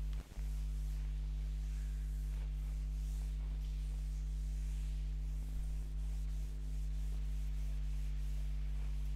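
Chalkboard duster rubbing across a chalkboard in repeated wiping strokes, erasing chalk writing, over a steady low hum.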